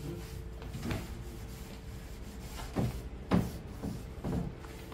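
Wooden drawer of a carved teak sideboard being slid and shut, giving a few knocks of wood on wood, the loudest a little past three seconds in.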